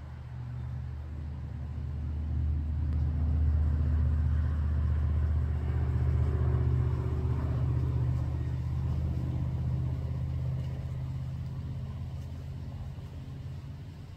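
Low engine rumble of a passing motor vehicle, growing louder to a peak about four to eight seconds in, then slowly fading away.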